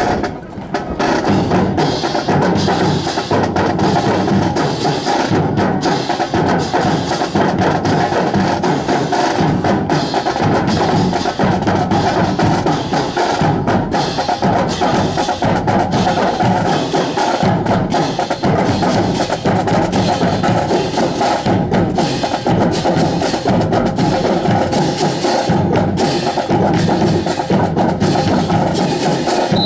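Marching band drums playing a continuous, loud cadence, with sharp wood-block-like clicking strokes over a bass drum beat.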